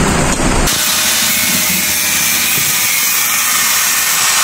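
Electric angle grinder running with its disc grinding a small metal part, throwing sparks: a steady, high grinding noise that begins suddenly about half a second in.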